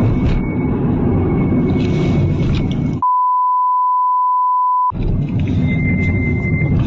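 A loud, dense rumble, cut off about three seconds in by a steady 1 kHz censor bleep lasting about two seconds that replaces all other sound, after which the rumble returns.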